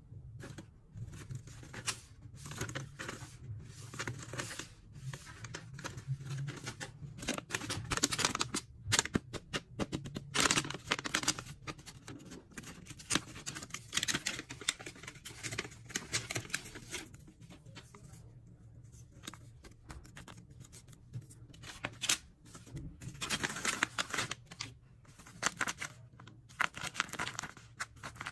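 Homemade paper blind bags being handled and torn open: irregular crinkling, rustling and tearing of paper, louder in several stretches.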